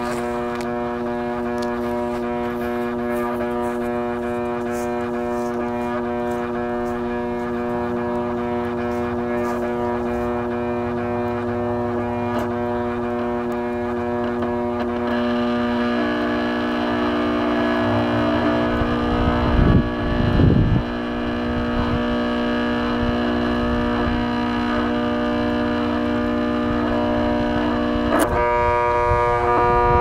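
Eureka Edge Kleener upright vacuum's motor running with a loud, steady whine while it overheats and smokes on its way to burning out. The pitch steps up about halfway, a couple of low thumps come around two-thirds in, and a sharp crack near the end drops the tone back.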